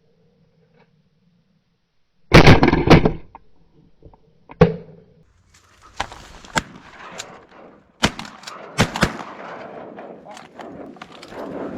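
Shotgun fire: a very loud blast about two seconds in, a second sharp report about two seconds later, then scattered clicks and knocks over a rustling background.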